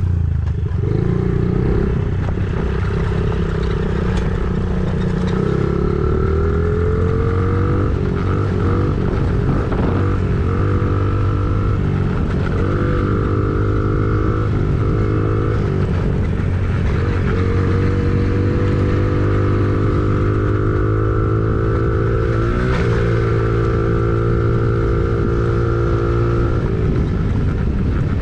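Engine of a machine running steadily under load, with a whining tone that rises, holds and shifts pitch several times over.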